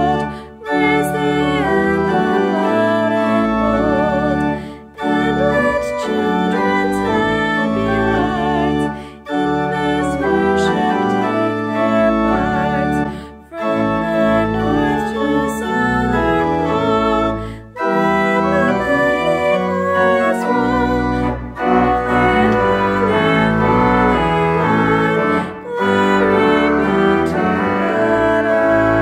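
Pipe organ playing a hymn and accompanying a woman singing solo. The music dips briefly between phrases about every four seconds.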